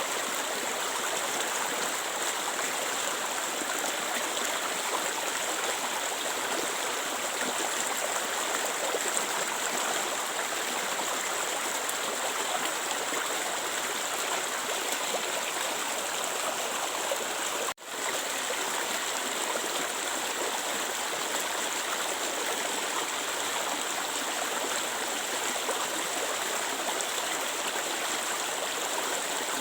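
Clear water flowing in a stream, a steady, even rush. About two-thirds of the way through, the sound cuts out for an instant and swells straight back.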